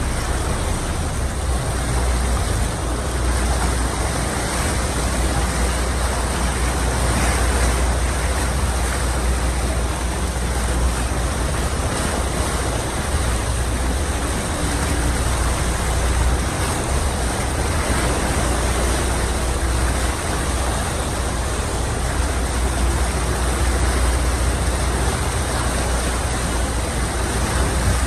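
Steady rushing noise aboard a moving excursion boat: engine and water wash along the hull, with wind buffeting the microphone as a strong, wavering low rumble.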